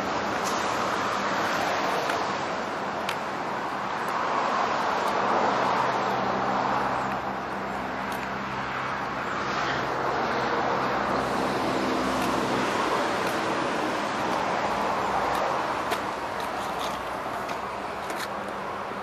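Road traffic noise: a continuous rush of passing vehicles that swells and fades, with a low engine hum for several seconds in the middle.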